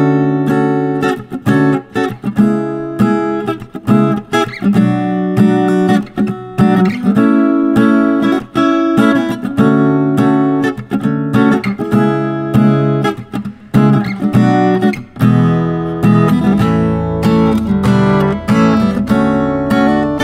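Gusta GMX-130E mini acoustic-electric guitar, solid spruce top with rosewood back and sides, strummed in chords that ring out between strokes.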